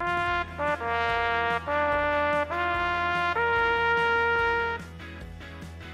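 A trumpet playing a short melody of held notes, the last one the longest, stopping about five seconds in; quieter background music carries on under it.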